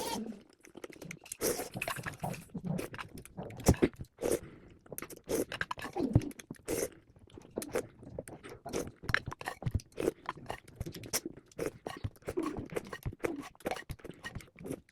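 A person chewing food close to the microphone: a dense, irregular run of crunches and mouth clicks.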